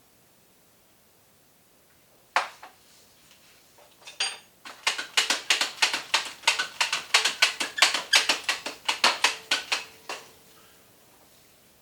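Hand meat tenderizer worked quickly over a raw strip steak, giving a single sharp click and then a rapid run of crisp clicking strokes, about five a second, for some five seconds.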